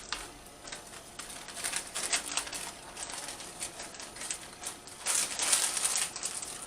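Light metal clicks and clatter from blacksmithing work, thickest between about one and a half and two and a half seconds in, with a denser hissing, rattling patch around five to six seconds in.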